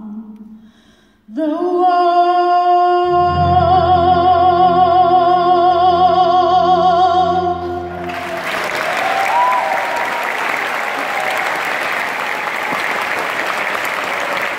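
Final held chord of a choir and orchestra, with a solo female voice sustaining a high note with vibrato and deep low orchestral notes coming in about three seconds in. The music stops about eight seconds in and the audience breaks into applause.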